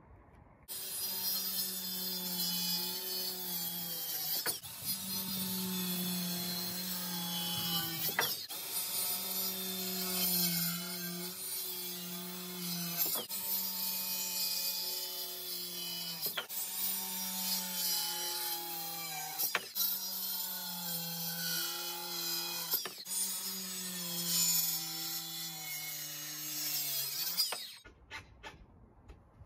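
A power tool running in long stretches, its pitch holding steady and dipping briefly every three to four seconds; it starts about a second in and stops shortly before the end.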